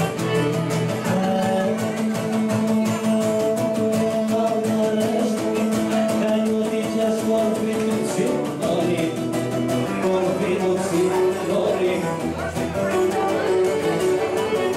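Live Cretan folk dance music: a bowed lyra plays the tune over strummed guitars.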